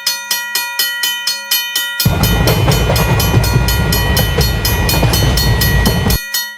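Japanese railroad crossing warning bell ringing in quick, even strikes. About two seconds in, the loud low rumble of a passing train joins it and then cuts off abruptly near the end.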